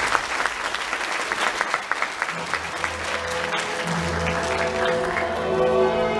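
Audience applauding with dense clapping. About two seconds in, orchestral music starts up beneath it, and the clapping thins out toward the end.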